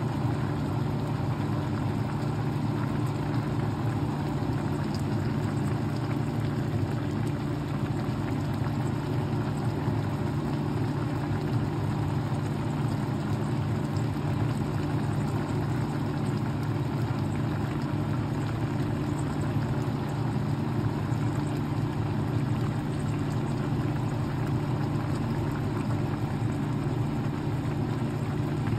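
A steady low hum with a hiss over it, unchanging in pitch and level, like a motor running in the kitchen.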